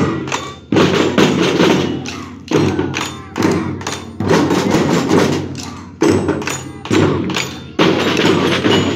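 A children's drum band of marching drums beating a repeating rhythm together: loud, sharp drum strokes with a strong accent about every second.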